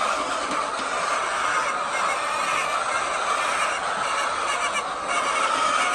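A large flock of hens clucking and chattering all at once, a steady, dense chorus.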